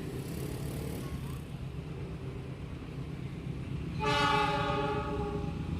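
CC 206 diesel locomotive's air horn sounding one blast of a little under two seconds about four seconds in, a chord of several steady tones, over a steady low rumble.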